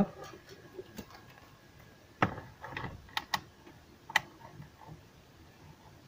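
A few light clicks and knocks as a multimeter and its test probes are picked up and handled on a workbench. The loudest knock comes about two seconds in, with three sharper clicks between about three and four seconds in.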